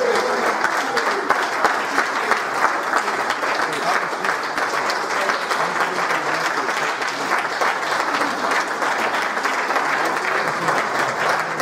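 Congregation applauding: steady clapping from many hands.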